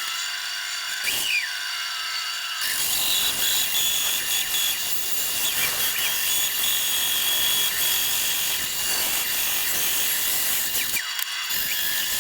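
Inexpensive, underpowered bandsaw running and cutting through a wooden blank, a steady high-pitched whine and hiss throughout.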